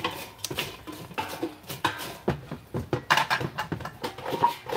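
A wooden spatula scraping and knocking against a nonstick air fryer basket as crinkle-cut fries are tossed around in it: a quick run of clicks and scrapes.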